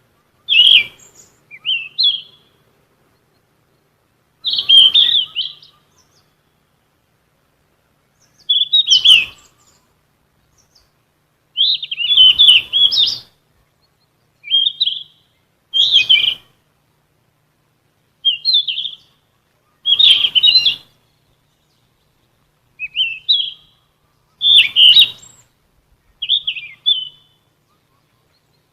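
Sikatan emas, a Ficedula flycatcher, singing about a dozen short, chirpy phrases, one every two to three seconds, with silence between them.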